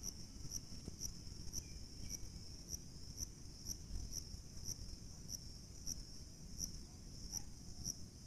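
A cricket chirping steadily, a high trill with louder pulses about three times a second, over a low rumble.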